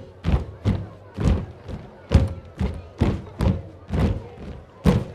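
Folk dancers' feet stamping in time on the stage as they dance a kolo, about two stamps a second in a steady rhythm.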